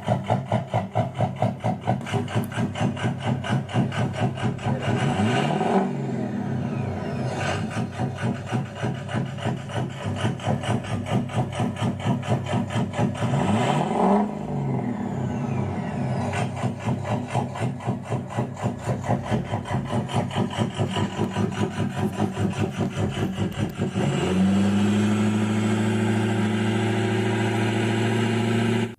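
Simulated V8 diesel engine sound effect played through a radio-controlled truck's small onboard speaker: a fast, pulsing idle, revved up and back down twice. About 24 seconds in it changes to a smoother, steadier drone, then cuts off suddenly.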